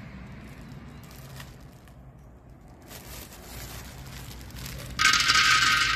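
Peanuts rattling against a pan as they are dry-roasted, starting suddenly and loudly about five seconds in after a quieter stretch.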